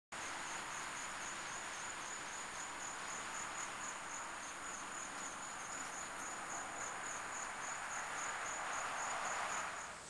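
Steady hiss with a high, thin chirp repeating evenly several times a second, like an insect.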